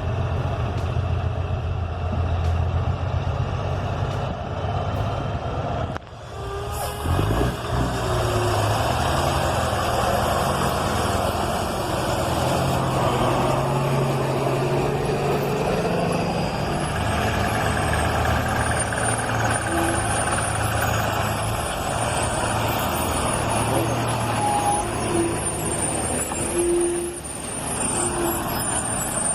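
Heavy machinery engine running steadily, with a sudden change about six seconds in to denser mechanical noise. A few short beeps come in the second half.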